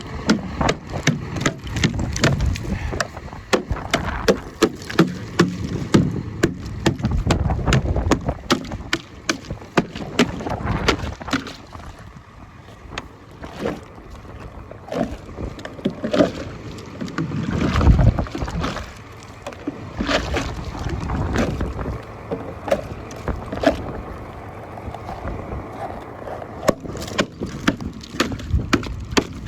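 Blizzard wind buffeting the phone's microphone in rumbling gusts, with many sharp clicks and knocks throughout; the strongest gust comes about 18 seconds in.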